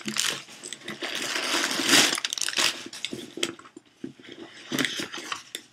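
A handbag being handled and opened: rustling and scraping of the bag with short clicks and knocks from its hardware, loudest about two seconds in.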